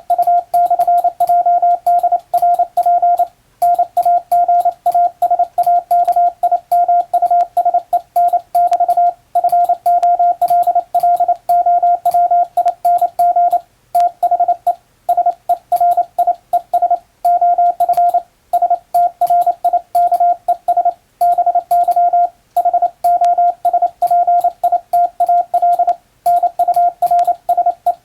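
Hand-sent international Morse code on a telegraph key: a single steady beep keyed on and off in rapid dots and dashes, with brief pauses between words and faint clicks at the keying.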